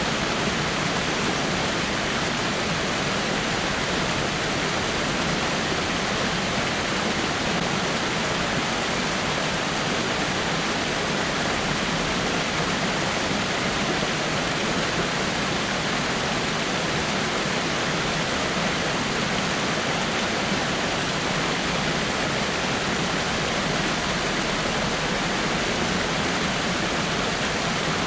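Small waterfall splashing steadily over rocks, an even, unchanging rush of falling water.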